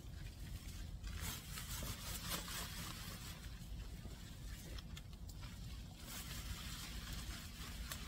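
Chili pepper plant leaves and stems rustling and scraping as gloved hands work through the bushes, in uneven bursts over a steady low rumble.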